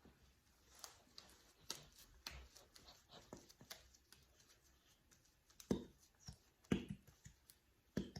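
Hands working homemade slime: scattered faint sticky clicks and pops, with three louder short thuds near the end.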